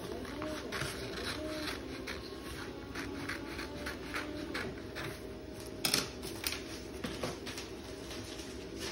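Scissors cutting around the edge of a large paper-backed vinyl stencil, a string of short crisp snips with a couple of louder clicks about six seconds in.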